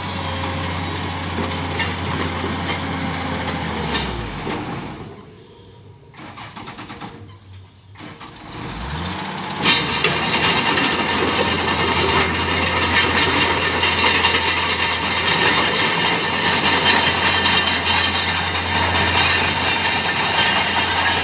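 Hydraulic excavator's diesel engine running steadily, winding down and stopping about four seconds in, then starting up again about four seconds later and running louder, with much more clatter and hiss.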